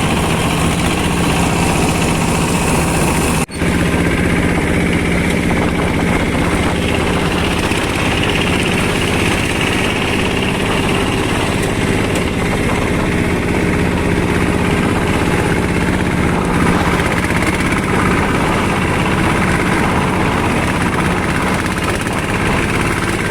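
Fishing boat's engine running steadily under way, a loud, even drone with a brief break about three and a half seconds in.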